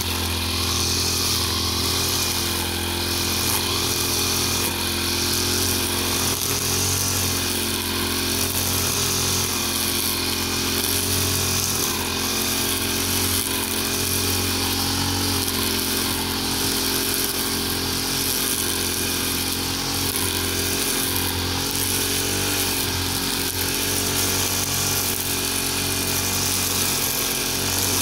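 Two-stroke brush cutter with a nylon-line head running steadily at cutting speed while trimming grass and weeds, its engine pitch wavering slightly as it meets the growth.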